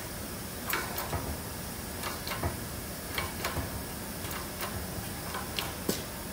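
Hydraulic shop press under load as it pushes against rusted-in propeller mounting bolts, giving about a dozen irregular sharp metal clicks and ticks over a steady hiss.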